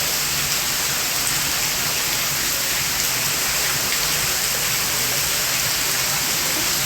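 Waterfall pouring: a steady, dense hiss of falling water.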